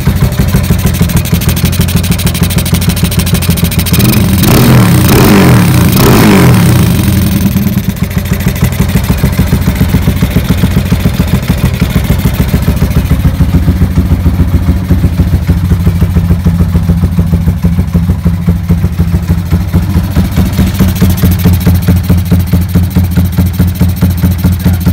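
Motorcycle engine idling with an even, pulsing exhaust beat. About four seconds in it is revved up and falls back, then settles to idle again.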